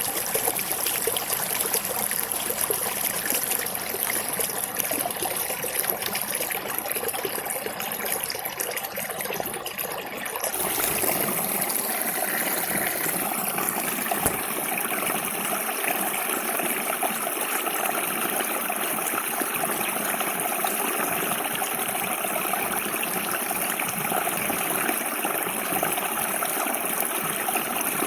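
River water flowing, a steady rushing and trickling. About ten seconds in the sound changes abruptly to a brighter, hissier flow.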